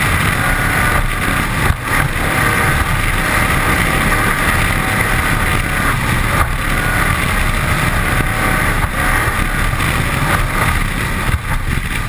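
A 1981 Cigarette 27 Squadron offshore powerboat running flat out, its 540 V8 with a Konrad stern drive running under heavy wind rush on the hull-mounted microphone and the hiss and splash of spray off the hull. The noise stays steady, with brief dips about two seconds in and again near the end.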